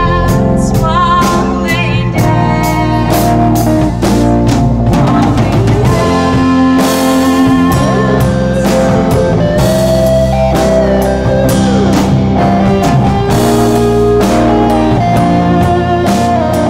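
A rock band playing a blues-rock song, with electric guitar, drum kit and a singing voice.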